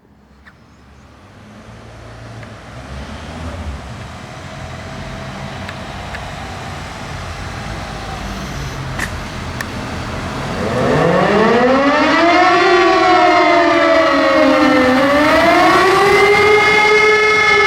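Civil-defence warning siren sounding the German 'Warnung der Bevölkerung' public-warning signal. It starts up about ten seconds in, its pitch sweeping up from a low growl to a loud wail. It then falls and rises again in a slow up-and-down howl. Before it starts there is only a faint, slowly rising background.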